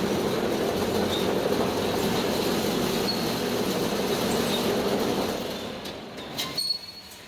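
Concrete block and paving machine running: a dense mechanical rattle and rumble that fades away after about five seconds, followed by a few sharp clanks near the end.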